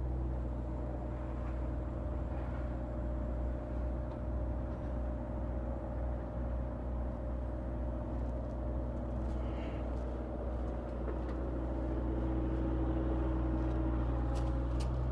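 An engine of a piece of construction equipment running steadily at an even speed, with a few faint ticks near the end.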